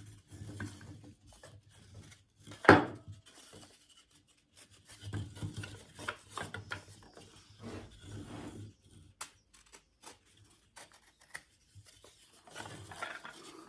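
Wooden chain links being handled by hand: the freshly bandsawn ring is pried open and worked onto the other links, with wood rubbing and clicking against wood. One sharp click about three seconds in is the loudest sound.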